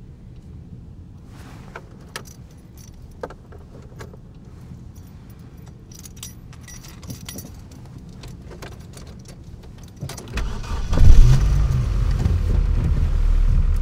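Keys jangling in a car cabin, a scatter of small metallic clicks over a steady low hum. About ten seconds in, a loud low rumble comes in and stays.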